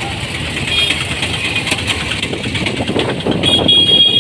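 Busy street traffic: motorcycle and auto-rickshaw engines running under a steady haze of road noise.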